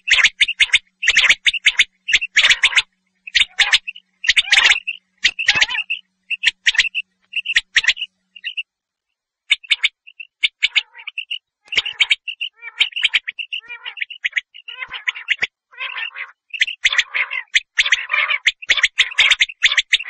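Common quail calling over and over in quick runs of sharp, high notes, with a short break about nine seconds in.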